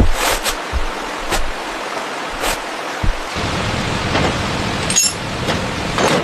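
Fast-flowing stream water rushing steadily, fuller and heavier from about three seconds in, with several short sharp knocks scattered through it.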